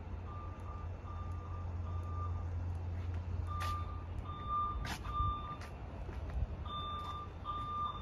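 Fire alarm horn sounding the temporal-three evacuation pattern: three short beeps, a pause, then three more, repeating, heard at a distance.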